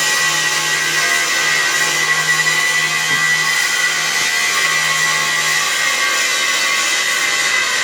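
Steady machine noise: a continuous hiss with a constant high whine and a low hum underneath, running without breaks.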